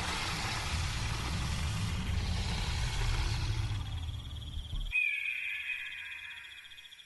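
Crickets chirping steadily under a long, low rumble that cuts off suddenly about five seconds in. A short, high, slightly falling cry follows.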